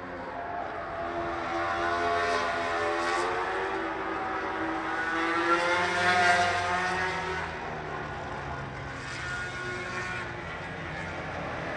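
Racing motorcycle engines at high revs going past on the track. The engine note builds to its loudest about six seconds in and then falls away.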